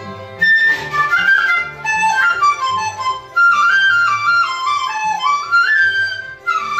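Dizi (Chinese bamboo flute) playing a flowing stepwise melody over an accompaniment with a steady low bass pulse. The flute enters loudly about half a second in and breaks off briefly near the end before carrying on.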